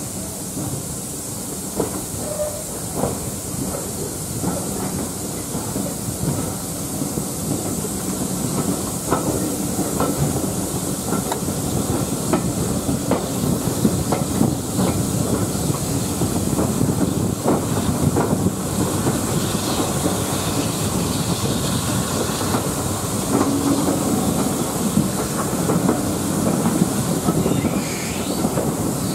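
Steam-hauled passenger train gathering speed, heard from an open carriage window: the wheels click and clack over the rail joints over a steady hiss of steam and rushing air.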